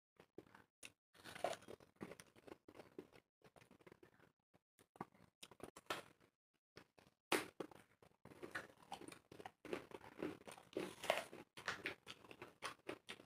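Two people biting into and chewing crisp raw apples, heard close up: irregular crunches and chewing, loudest in a few clusters of bites.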